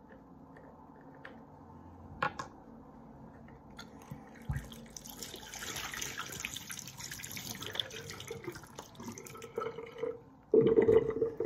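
Water pouring out of a hot water bottle as it is emptied, a hissing pour starting about halfway through and lasting a few seconds. Near the end comes a brief loud bump.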